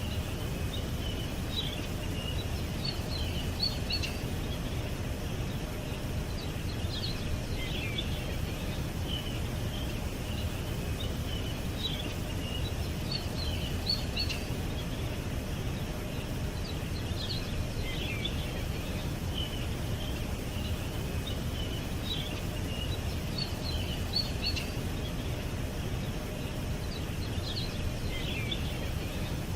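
Small songbirds chirping and twittering in scattered clusters of short high notes, over a steady low background rumble.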